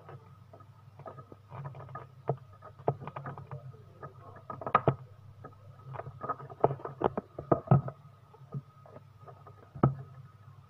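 Irregular small clicks, taps and crackles of hands working on refrigerator wiring and parts, over a steady faint hum.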